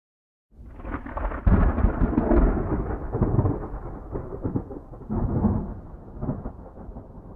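Rolling thunder rumble that comes in about half a second in, swells at about a second and a half and again near five seconds, then slowly fades.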